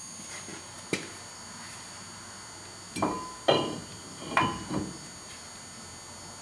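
Brake rotor clanking against the wheel hub and studs as it is worked onto a truck's rear axle. There is a sharp tick about a second in, then four clanks with a brief metallic ring between about three and five seconds.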